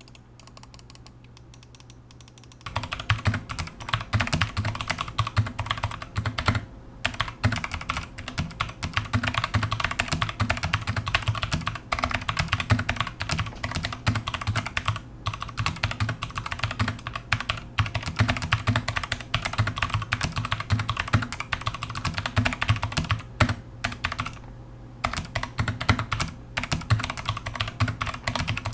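Typing sound test on a Tecware Phantom Elite TKL mechanical keyboard with internal foam padding: fast, continuous key clicks that start about two and a half seconds in, with a couple of brief pauses.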